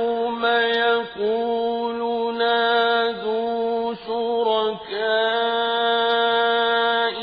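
A man reciting the Quran in slow, melodic tajwid style, drawing out long held notes with short breaks between phrases.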